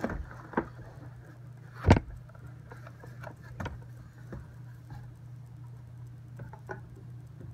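Cardboard box being opened by hand: scattered knocks and clicks of the lid and flaps, the loudest thump about two seconds in. A steady low hum runs underneath.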